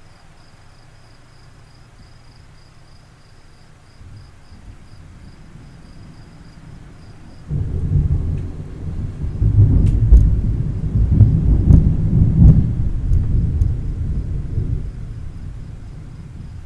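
Thunder: a faint rumble swells about four seconds in, then a loud, deep rumble breaks in suddenly about halfway through. It rolls on for several seconds with a few sharp cracks before slowly fading.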